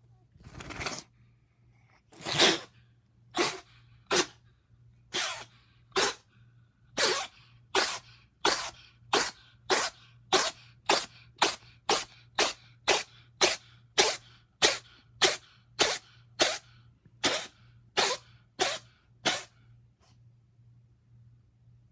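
A cat sneezing about thirty times in a row, short sharp sneezes that come faster as the fit goes on, about two a second toward the end, then stop.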